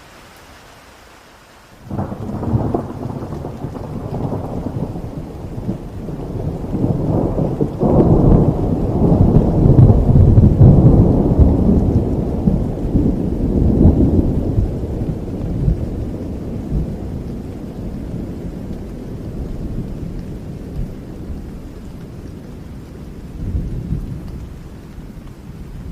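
Steady heavy rain, then a sudden thunderclap about two seconds in that turns into a long rolling rumble. The rumble grows loudest in the middle, then fades, with a smaller rumble near the end.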